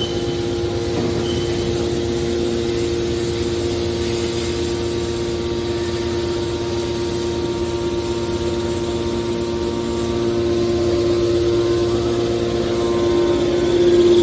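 Hydraulic metal baler's power unit running with a steady hum, growing louder toward the end.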